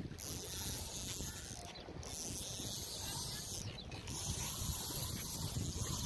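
Spinning reel being cranked to wind in line, a steady mechanical whirr broken by two short pauses.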